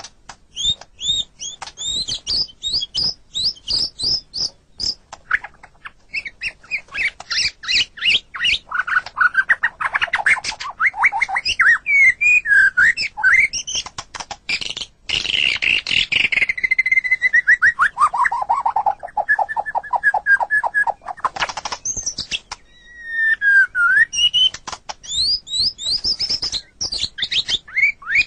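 White-rumped shama (murai batu) singing a long, varied song of rapid whistled phrases and trills, with a falling run of quick repeated notes around the middle and a brief pause about two-thirds through.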